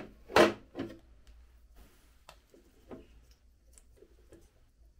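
Knocks and clatter of a hard plastic cover panel from a Benzina Zero Duo+ electric motorcycle being handled and set down, the loudest about half a second in, then a few light clicks as hands work at the wiring.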